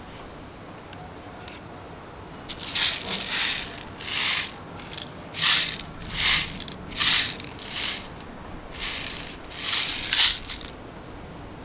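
Airsoft 6 mm plastic BBs rattling in short bursts, about ten times, as gas-blowback M4 magazines are loaded by hand.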